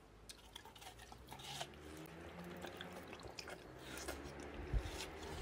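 Watermelon being bitten and chewed, faint, with small scattered clicks and a soft knock about five seconds in.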